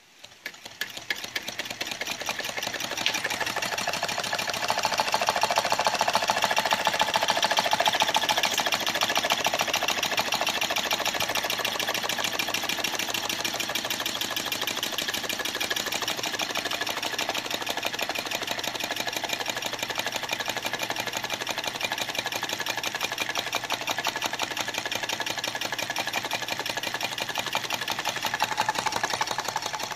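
Homemade candle-heated Stirling engine running with a fast, even mechanical clatter. It starts up, grows louder over the first few seconds, then keeps a steady pace.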